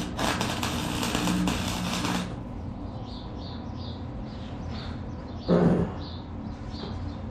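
Forney FC125 flux-core welder arc crackling and sizzling with a steady electrical hum, cutting off suddenly about two seconds in. A short burst of the same arc crackle comes about five and a half seconds in, and small birds chirp in between.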